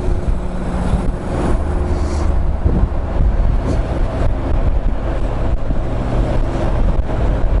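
Honda NC750's parallel-twin engine running steadily while riding, under the rush of wind and road noise on the helmet microphone.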